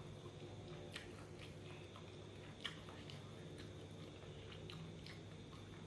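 Faint chewing of a mouthful of fried rice, with scattered small clicks and one slightly louder click about two and a half seconds in, over a steady low hum.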